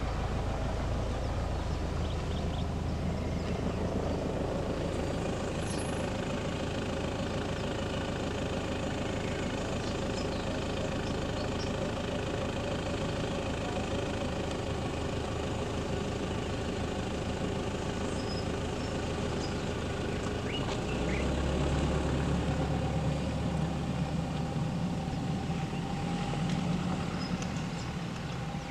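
Vehicle engines idling at close range, a steady hum. About two-thirds of the way through a deeper hum grows louder for several seconds, then eases off near the end.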